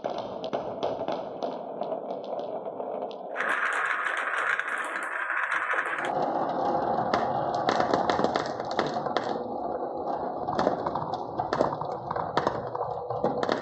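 Marbles rolling along wooden marble-run tracks and blocks: a continuous rolling rumble with many small clacks and clicks. The sound changes abruptly twice, about three and six seconds in.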